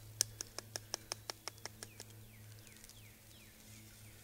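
Animal calls: a quick run of about a dozen sharp clicks, fading as they go, then a few faint falling chirps.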